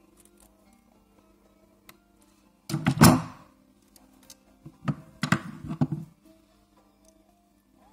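Two bursts of knocking and clattering from small plastic and metal parts being handled against a work table, the first brief and the second a longer run of knocks a couple of seconds later, over steady background music.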